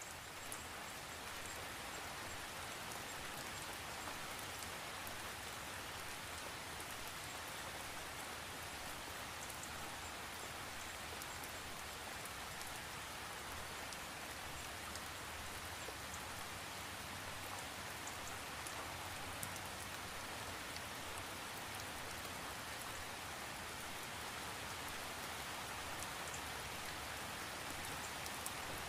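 Steady rain falling, an even hiss of rainfall with a few sharper single drops ticking now and then.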